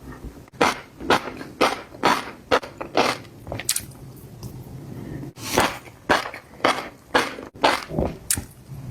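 Close-miked eating of fish roe: crunchy, crackling chews about twice a second, with a short pause in the middle.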